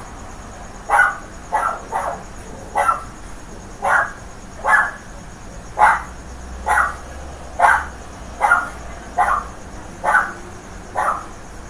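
Dog barking over and over, short sharp barks at about one a second.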